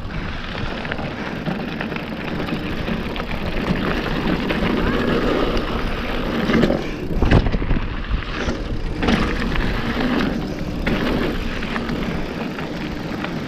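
Mountain bike riding down a dirt trail: a steady rush of tyre and wind noise with a few knocks over bumps, the sharpest about seven seconds in.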